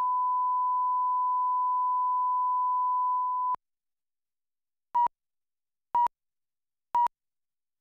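Steady broadcast line-up tone over colour bars, cutting off about three and a half seconds in. After a second of silence come short countdown-leader beeps at the same pitch, one a second, three times.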